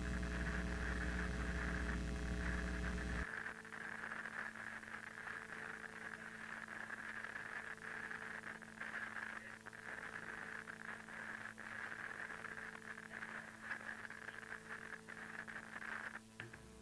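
VHS-style tape playback noise: a low electrical buzz for the first three seconds or so, which then drops to a quieter crackling hiss over a steady faint hum.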